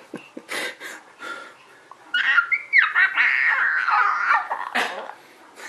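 A small child making playful vocal sounds: a few short breathy puffs, then a high-pitched squealing babble of about two and a half seconds that wavers and slides in pitch, ending in a short burst.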